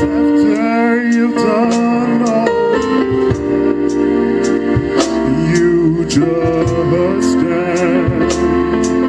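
Live gospel music: a male lead singer singing into a microphone with a choir and electric guitar, amplified through PA speakers, with sustained wavering vocal lines over a steady beat.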